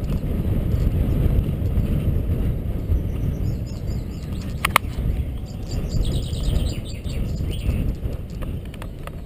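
Steady low rumble of a bicycle rolling across an iron railway bridge, mostly wind on the camera's microphone and tyre noise from the deck. There is one sharp click about halfway through, and faint bird chirps in the middle.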